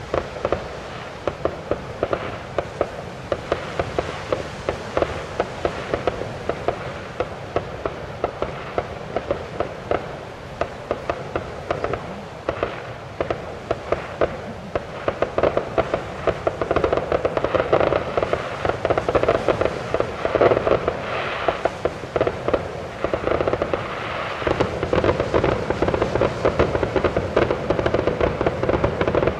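Fireworks display: a rapid string of bangs and crackles from shells bursting overhead, several a second, growing denser and louder about halfway through and again near the end.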